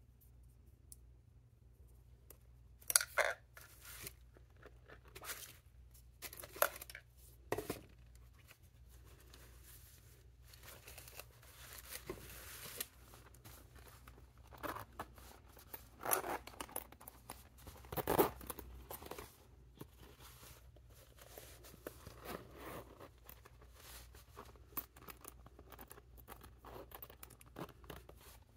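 Irregular rustling, rasping and small knocks of packaging being handled, with the metal zipper of a velvet cosmetic pouch being worked along its track.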